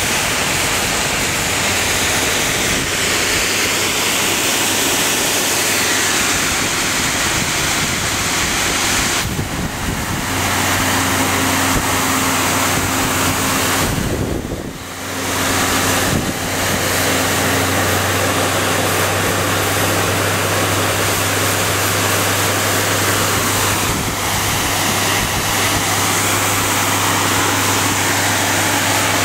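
Heavy water stream rushing from the ladder-pipe nozzle at the tip of an aerial ladder fire truck: a loud, steady spray, briefly dipping about halfway through. The truck's engine runs steadily underneath.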